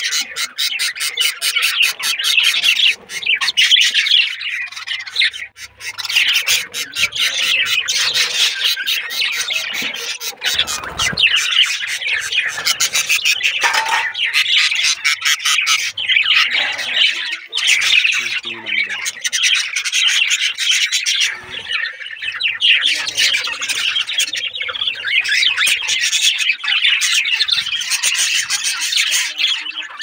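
Budgerigars chattering and squawking without a break, a dense mix of rapid chirps and harsh calls.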